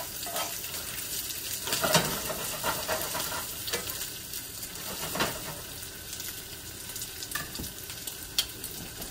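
Browned butter and lemon juice sauce boiling and sizzling in a skillet on a gas burner: a steady hiss broken by occasional sharp crackles.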